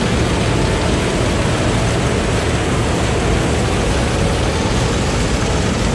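Mini combine harvester running steadily while cutting standing wheat: engine and belt-driven threshing machinery giving a loud, even drone.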